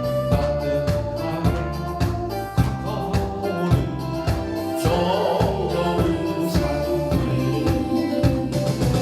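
Upbeat Korean trot song in polka rhythm, a live vocal over a steady, bass-heavy band accompaniment.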